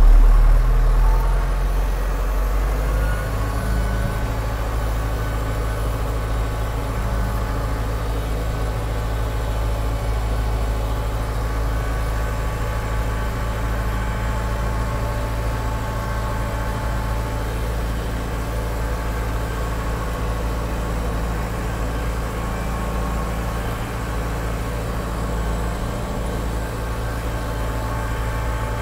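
John Deere 6300's four-cylinder diesel engine running steadily under way, heard from inside the cab with the door open. It is louder and deeper for the first couple of seconds, then settles to an even drone.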